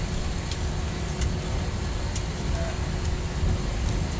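Jet airliner cabin noise while taxiing: a steady low rumble of the engines and airflow under a faint constant hum, with a few faint ticks or rattles from the cabin.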